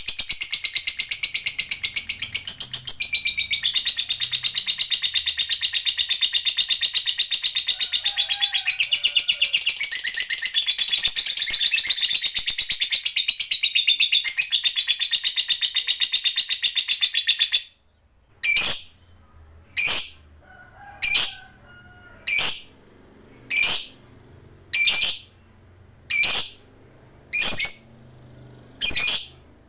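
A lovebird's long, rapid, high-pitched chattering trill, the 'ngekek panjang', runs unbroken for about 18 seconds and then cuts off abruptly. After that come short, sharp single calls, evenly spaced about one every second and a quarter.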